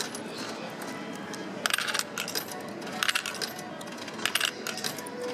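Coins being fed one at a time into a drink vending machine's coin slot, each clinking down through the coin mechanism as the credit registers. Three short clusters of clinks, about a second apart.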